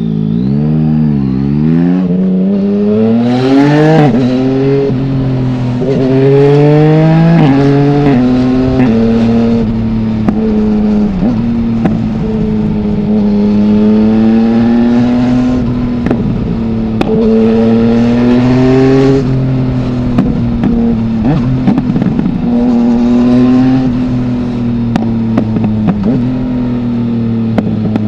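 2020 Yamaha MT-09's 847 cc three-cylinder engine through an Akrapovic full-system exhaust with no dB killer, pulling up through the gears, its pitch dropping back at each of several quick shifts. It then runs at a steadier pace with the revs rising and falling, and near the end crackles and pops on the overrun.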